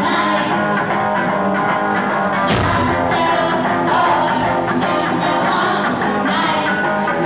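Rock band playing live, with strummed electric guitar over drums. A heavier low end comes in about two and a half seconds in.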